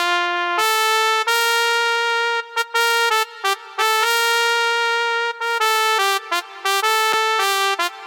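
Yamaha MODX8 synthesizer's factory trumpet preset played as a single melodic line with reverb: bright, held brass notes broken by short gaps, with a run of quicker notes in the second half.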